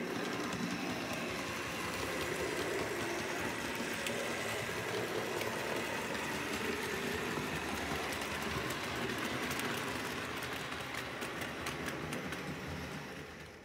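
OO gauge model train running on the layout: the steady whir of its small electric motor and wheels, with light clicking over the rail joints, fading out near the end.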